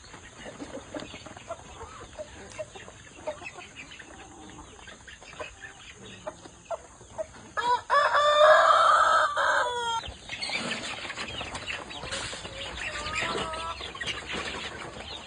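Chickens clucking with scattered short clicks, and a rooster crowing once, loudly, for about two seconds around the middle.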